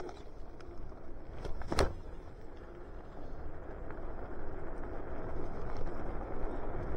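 A sharp click about two seconds in, then road and wind rush that builds steadily as the electric scooter gets moving.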